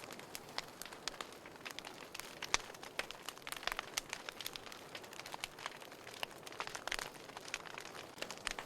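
Wood fire burning in a fireplace, crackling with many irregular sharp pops and snaps over a steady hiss.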